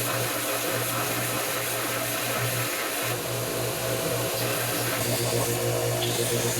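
A workshop machine running steadily, a continuous whirring noise over an even low hum.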